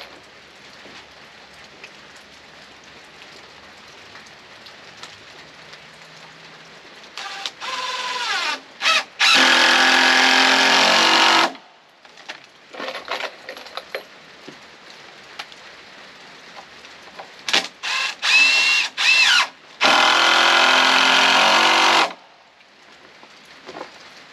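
Power drill run twice in bursts of a few seconds, its motor pitch dipping and rising as the trigger and load change.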